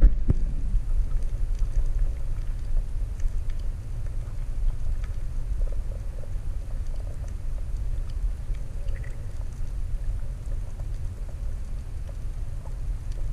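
Muffled low rumble of water moving around an underwater camera housing, with faint scattered ticks and a sharper tick at the very start.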